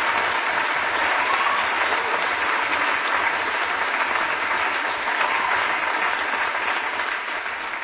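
Audience applauding steadily, a dense clapping that eases off slightly near the end.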